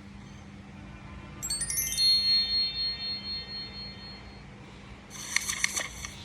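Chime: a quick downward run of bell-like notes, then one high note ringing out for about two and a half seconds. Near the end comes a brief jingling rattle.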